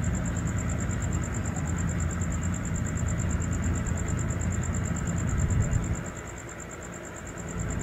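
A steady low rumble that eases off about six seconds in and swells back near the end, with a faint steady high-pitched whine running under it.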